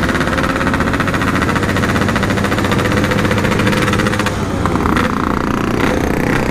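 Yamaha RX-King two-stroke single-cylinder engine running at speed through its stock-style packed exhaust, a steady rapid buzz of firing pulses. A fainter rising tone comes in about four to five seconds in.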